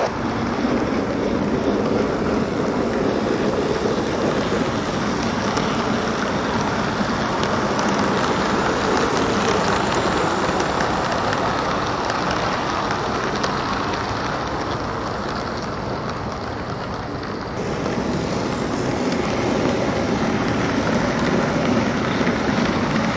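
O scale model trains rolling along the track: a steady rumble of wheels and motors. The sound jumps louder about 17 seconds in.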